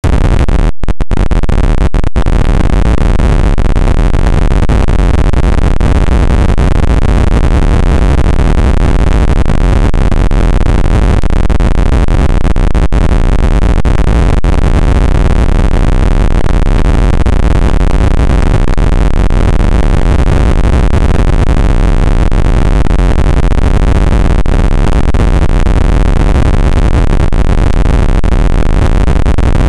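Heavily overloaded, digitally distorted audio: a loud, dense wall of harsh noise, heaviest in the bass, with a few brief dropouts in the first two seconds.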